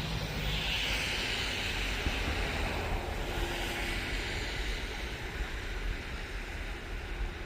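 Wind buffeting the microphone over a steady hissing rush, typical of a toboggan sliding fast down snow with the camera riding along. The rush eases slightly toward the end.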